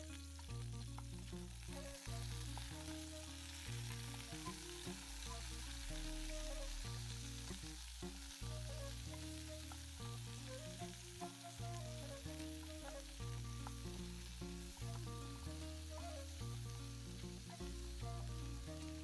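Peeled potatoes sizzling and frying in a metal pot as a wooden spoon stirs them, with small knocks of the spoon and potatoes. Background music of held low notes plays throughout.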